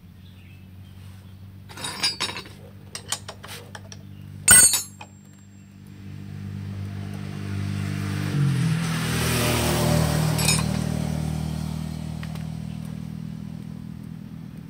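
Metal engine parts and tools clinking as they are handled, with a few light clicks and one loud, sharp clank about four and a half seconds in. Behind them a motor vehicle engine hums steadily, rises in pitch and grows louder through the middle, then fades.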